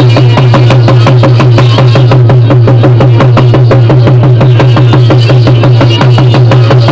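Afghan folk music: fast, even drumbeats over a steady low drone.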